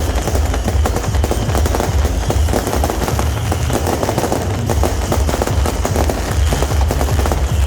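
Dense, continuous crackle of firecrackers and a beehive-rocket barrage, hundreds of small rockets and crackers going off in rapid, unbroken succession over a low rumble.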